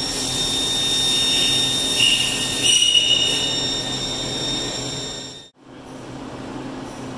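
Haas TL-1 CNC lathe running a machining cycle under flood coolant: a steady high machine whine with a hiss of spray and cutting, and brief shrill squeals about two and three seconds in. Near the end it changes abruptly to a quieter, lower machine hum.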